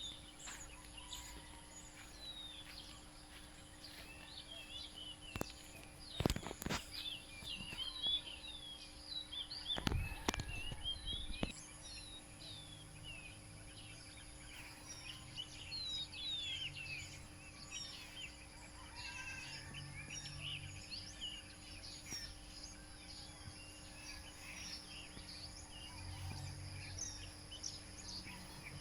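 Many small birds chirping and twittering, short rising and falling calls throughout, in quiet rural ambience. A few sharp knocks break in around six and ten seconds in.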